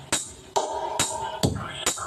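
Electronic dance track played through a sound system during a sound check: a fast, steady drum-machine beat, a little over two beats a second, with short held synth notes between the beats.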